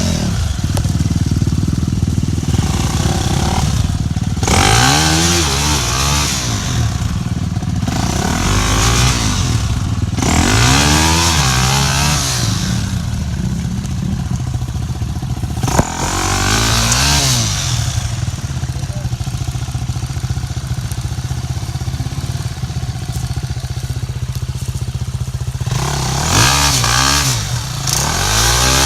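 An off-road vehicle's engine being revved up and down again and again as it works over rough ground. The pitch climbs and falls in repeated surges, several seconds apart, over a steady running engine, with bursts of hissing noise during the surges.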